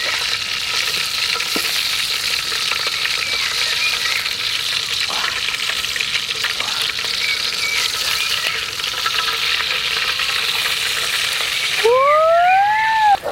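Pork frying in hot oil with a steady sizzle. Near the end the sizzle cuts off and a loud cry starts that rises and then falls in pitch.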